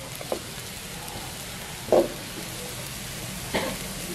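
Onions, dried red chillies and cumin seeds frying in oil in a metal wok: a steady sizzle, with a few short knocks of the spatula against the pan, the loudest about two seconds in.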